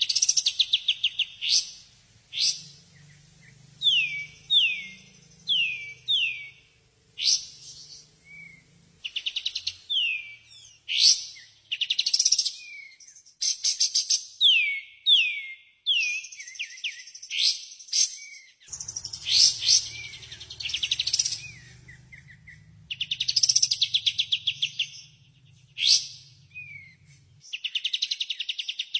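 Green leafbird (cucak ijo) song played as masteran: a fast run of quick downward-sliding whistled notes, mixed with loud, rapid rattling trills and chattering phrases, with short gaps between phrases.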